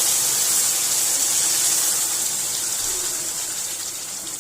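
Hot jaggery water poured into a pan of roasted amaranth flour, setting off a loud hiss and sizzle that slowly dies down.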